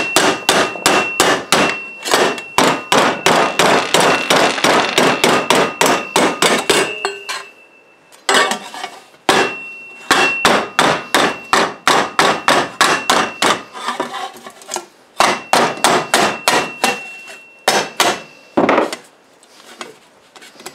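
Rapid hammer blows on a thin sheet metal cone held over a pipe in a vise, about four a second in three long runs with short pauses between, the sheet ringing with each blow. It is the hand-forming of a cone for a two-stroke expansion chamber exhaust.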